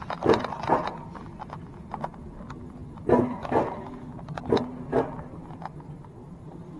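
A dog barking in pairs of short barks, three times over, against a steady low background rumble.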